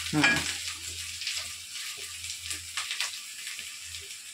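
Boiled rice being tipped and spread in layers into a cooking pot on the stove. There are soft rustles and light ticks of grains and plate over a faint steady hiss, with a short vocal sound right at the start.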